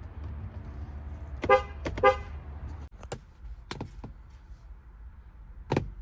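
A car horn honked twice, two short toots about half a second apart, over a low rumble. After that come a few sharp clicks or knocks.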